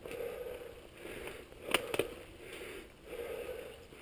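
Mountain bike being ridden along a dirt singletrack: uneven rattle and rustle from the tyres and bike, with wind on the microphone, and one sharp clack a little before halfway as the bike hits a bump.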